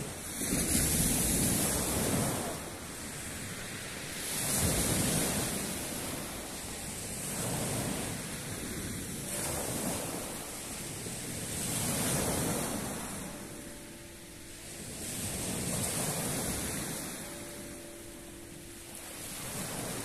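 Small sea waves breaking and washing up a pebble beach, surging in and drawing back about every three to four seconds.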